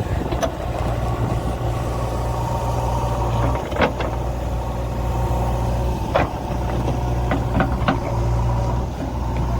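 Backhoe loader's diesel engine running steadily at a low, even pitch, with a few sharp knocks or clanks about four and six seconds in and a quick cluster of them around seven to eight seconds.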